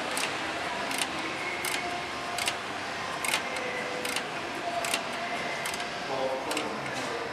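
Hand ratchet wrench clicking in short bursts, about one every three-quarters of a second, as a bolt is run down tight.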